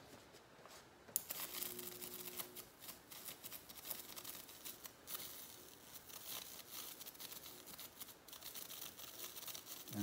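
Electro-pounce pen sparking through pattern paper as it is drawn along the lines: a faint, fast crackle that starts about a second in.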